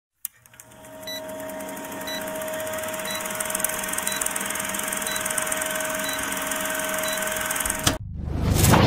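Old film countdown-leader sound effect: a projector's steady whirr and clatter with a short tick about once a second. It cuts off about eight seconds in and a loud whoosh of a rocket launch swells up near the end.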